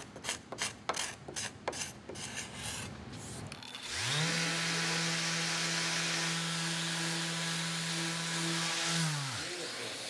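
Quick, repeated hand strokes rubbing along a walnut board's live edge, then a random orbital sander with a soft pad that spins up near 4 s, runs with a steady hum and hiss while sanding the edge flush, and winds down with a falling pitch a little after 9 s.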